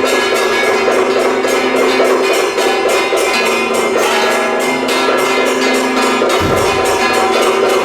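Taiwanese temple-procession percussion: fast, even gong and cymbal strikes over a steady held tone, with one deep drum beat about six and a half seconds in.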